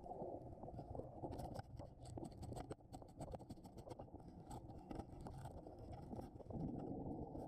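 Muffled underwater sound picked up through a camera housing: a low rumble with scattered clicks and crackles, thickest in the first half and again near the middle.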